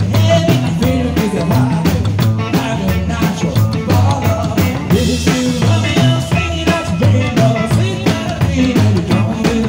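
Live rockabilly band playing: an upright double bass driving the low end under a steady drum kit beat, with a male voice singing.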